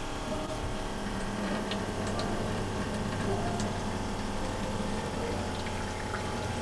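A pump hums steadily while fresh water pours from the brine hose into a plastic 5-gallon jug. This is the watermaker's freshwater flush cycle rinsing the membranes.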